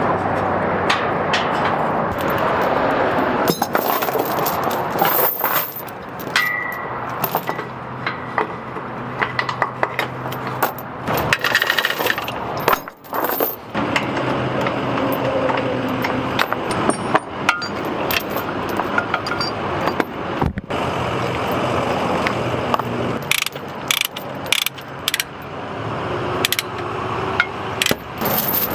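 Bobcat mini excavator's diesel engine running steadily, with frequent sharp metallic clanks and knocks throughout.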